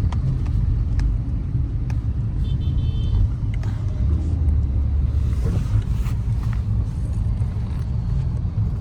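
Car driving along a road: a steady low rumble of engine and tyre noise. A short high-pitched tone sounds briefly about two and a half seconds in.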